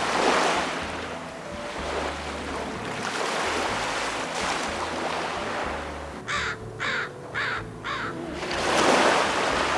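Small waves washing onto a beach, swelling near the start and again near the end. About six seconds in, a bird gives five short, harsh calls in quick succession.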